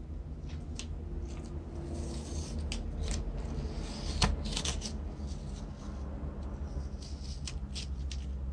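Tape being peeled off the painted metal cup of a vintage Boston pencil sharpener, crackling in short stretches with scattered clicks as the part is handled; a sharp click a little past four seconds in is the loudest. A steady low hum runs underneath.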